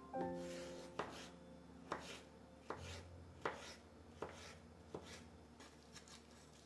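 Soft instrumental background music with a steady beat of light knocks, a little under one a second, and a held low note through the middle.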